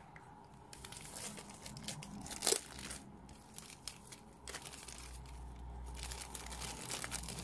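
Clear plastic sleeve around a rolled diamond-painting canvas crinkling as it is handled, in scattered crackles with one sharper crackle about two and a half seconds in.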